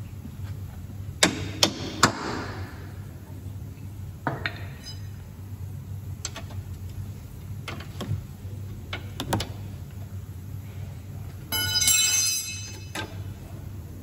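Metallic clinks and knocks of hand tools working on the VW Polo's new suspension arm and its bolts as the arm is eased into line. Three quick knocks come about a second in, then scattered single clicks, then about a second of ringing metallic rattle near the end, over a steady low hum.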